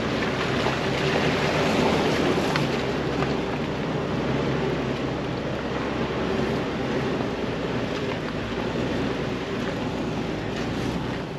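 Jeep Wrangler TJ driving slowly down a rocky off-road trail: a steady engine drone under rough noise from the tyres and the trail, with a few sharp clicks and knocks.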